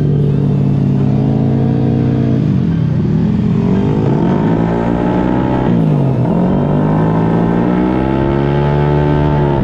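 Vespa automatic scooter's engine running hard at speed. The engine note dips about three seconds in and drops sharply about six seconds in as the throttle eases, each time climbing back up.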